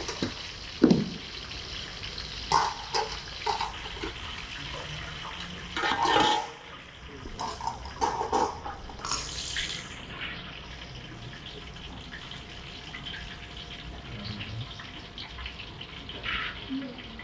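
Water running from a kitchen tap into a sink, with dishes and utensils clattering and knocking. A sharp knock comes about a second in, and the hiss thins out about ten seconds in.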